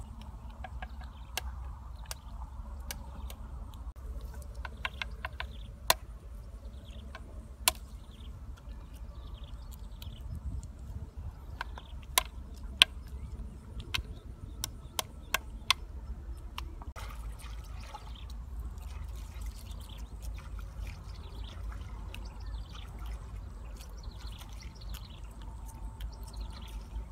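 Freshwater snail shells clicking sharply, one at a time, as they are picked up and dropped onto a pile and knocked together in the hand, over a steady low rumble and faint high chirps.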